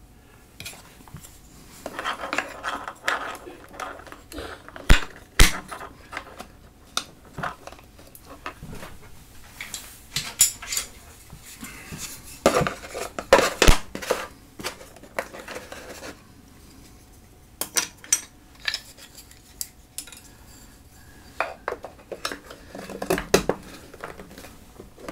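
Small hard pedalboard parts such as spacers clinking, knocking and scraping as they are handled and fitted into the board. The clatter is irregular, with a few sharper knocks about five seconds in and again around thirteen seconds.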